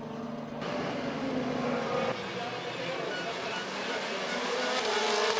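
A pack of touring cars racing past with several engines revving at once, their pitches rising and falling as they change gear. It starts suddenly about half a second in, replacing a steadier, lower engine drone, and grows louder near the end.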